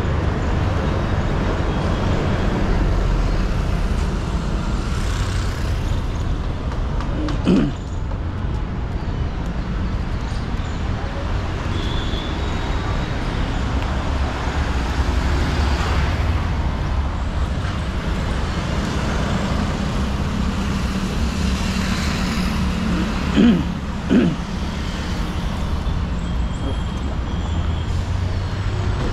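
Steady road traffic: vehicles passing and engines running, a continuous low hum and rush. There is one short, louder wavering sound about a quarter of the way in, and two more close together later on.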